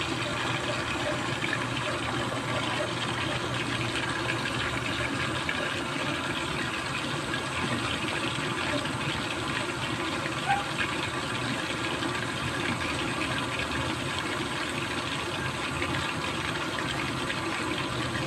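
Breaded chicken fillets deep-frying in hot oil in a stainless-steel pot: a steady sizzling crackle of the oil bubbling around the submerged meat.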